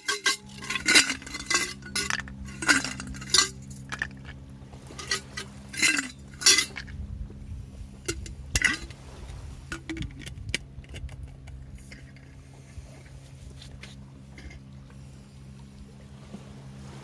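Metal or ceramic camp utensils and cookware clinking and tapping: a quick run of sharp clinks over the first half, thinning to a few lighter taps later, over a faint steady hum.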